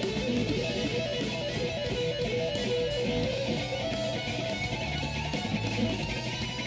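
Electric guitar played in quick runs of single notes over lower sustained notes, on a red SG-style solid-body.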